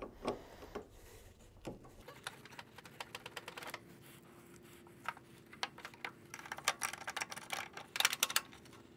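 Gloved hands loosening the wing nuts and metal hold-down on a car battery: a scattered run of small metal clicks and taps, coming quicker from about three seconds in and loudest near the end, over a faint steady hum.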